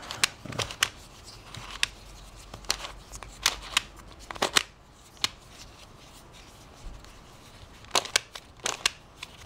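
Stickerless plastic Ivy Cube puzzle being twisted by hand, its pieces clicking as the faces turn: about a dozen sharp, irregular clicks, with a quiet stretch of about two seconds past the middle.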